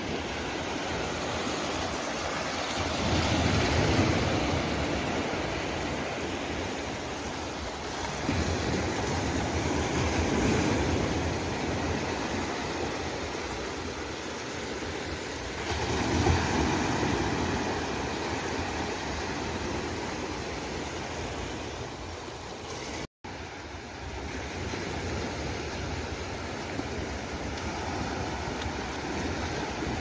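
Small waves breaking and washing up over a black-sand beach, a steady rush of surf that swells louder three times, each about six seconds after the last.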